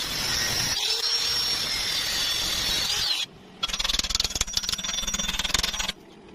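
An angle grinder running against steel square tubing for about three seconds with a high whine, cutting off suddenly. After a short pause comes about two seconds of the fast, even crackle of a welding arc.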